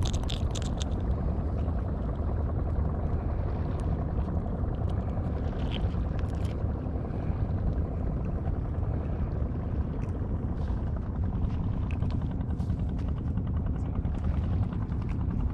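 Small fishing boat's engine running steadily, a low drone with a fast even pulse.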